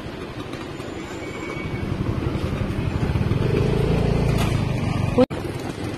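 Motorcycle engine running while riding, with road and wind noise. The engine grows louder from about two to five seconds in, and the sound cuts out for an instant just after five seconds.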